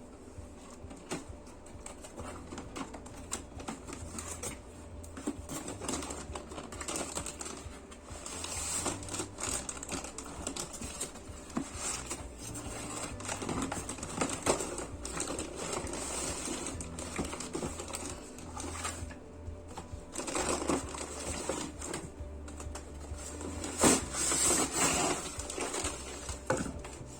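A cardboard box and its packaging being opened and handled, giving irregular rustling, scraping and clicking. Soft background music runs underneath.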